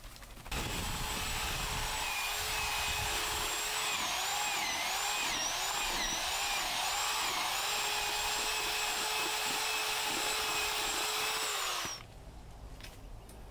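Power drill mixing cement in a plastic bucket. It runs at a steady whine whose pitch dips and recovers several times in the middle, then stops about a second before the end.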